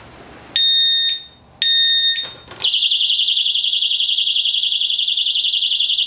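Xena XN15 disc lock alarm set off by disturbance: after faint handling noise, two half-second warning beeps a second apart, then from about two and a half seconds in its piercing 110 dB siren sounds, a loud high tone warbling rapidly.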